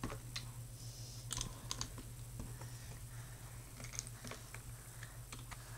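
Faint, scattered clicks of plastic Lego pieces being handled and fitted together on a tabletop, over a low steady hum.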